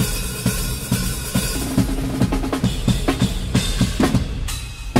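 Drum kit played fast and hard: rapid double bass drum strokes under snare hits and cymbal wash. It drops out briefly near the end before the next hit.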